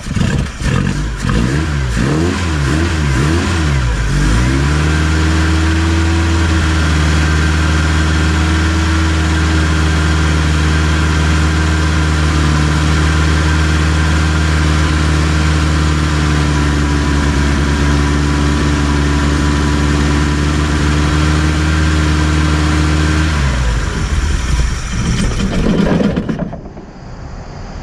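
BMW 2002's M10 four-cylinder engine revving up and down unevenly for the first few seconds, then running steadily. It turns rough a little after twenty seconds and cuts out about 26 seconds in.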